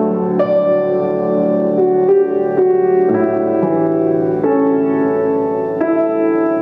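Grand piano played solo, a flowing melody over chords. New notes are struck every half second to second, each left ringing into the next.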